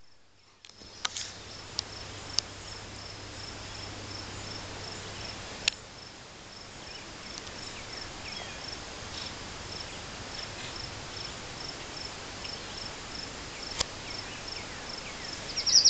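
A high insect chirp pulsing steadily about three times a second, with a few faint clicks. Near the very end a chestnut-sided warbler starts singing loudly, a quick run of high notes.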